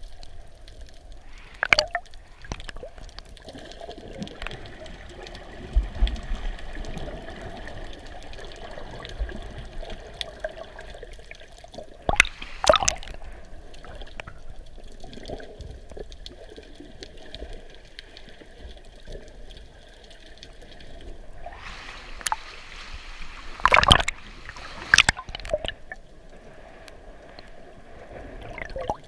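Water trickling steadily, with a few sharp knocks scattered through.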